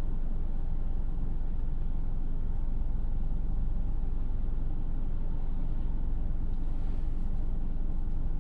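Steady low rumble of a car on the move, engine and tyre noise picked up by a dashcam inside the cabin.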